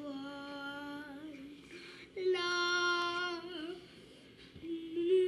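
A girl singing unaccompanied in long, wordless held notes: one held note, then a louder, slightly higher one about two seconds in, and another starting near the end.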